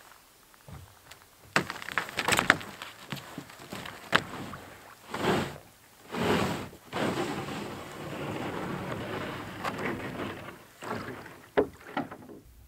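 A canoe being launched off a snowy, ice-rimmed shore: a few sharp knocks as someone climbs in, then the hull scraping and sliding over snow and thin shore ice. There are two long pushes about five and six seconds in, then a rougher, steadier scrape, with a few more knocks near the end.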